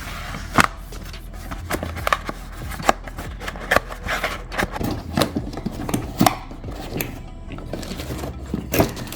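Hands handling the laptop's cardboard box and packaging: irregular taps, clicks and short scrapes and rustles, over a steady low hum.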